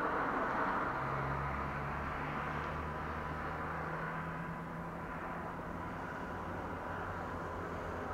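Steady hiss of road traffic from the street below, with the low drone of a passing vehicle's engine for a few seconds.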